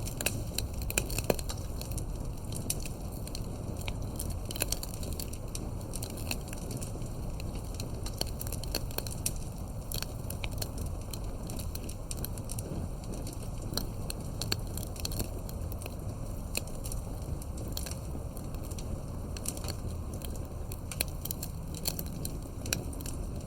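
Campfire burning, with frequent irregular crackles and pops of burning wood over a steady low rumble of the flames.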